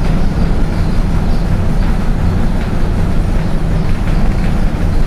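Large walk-in egg incubator running noisily: its circulating fan (paddle) gives a loud, steady low hum and rumble. A few faint clicks come as a tray of duck eggs is slid into its racks.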